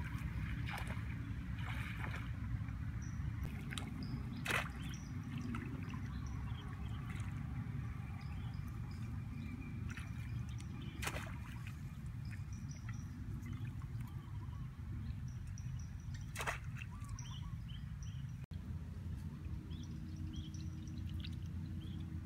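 Bare feet splashing through shallow water in flooded grass, with a few sharp splashes standing out over a steady low rumble.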